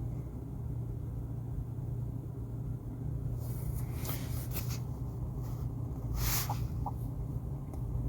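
Steady low hum of room or recording noise, with a few short, faint hissing sounds about halfway through and again near the end.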